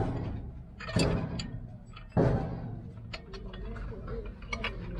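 Steel spanners clanking and clicking on the nut and bolt of a pump's pipe flange as they are tightened on a water tanker: three heavier clanks about a second apart, then a run of quick light clicks.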